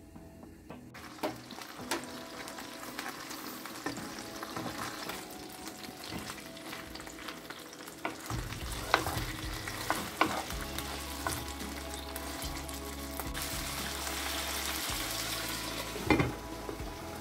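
Chicken thighs sizzling as they fry in oil in a pan, with scattered knocks of wooden spatulas turning them. Near the end a glass lid is set on the pan with a clunk, the loudest sound.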